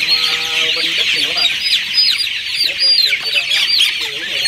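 A large flock of 24-day-old chicks peeping loudly, with many short, high, downward-sliding calls overlapping without a break. A brief low pitched tone sounds under them during about the first second.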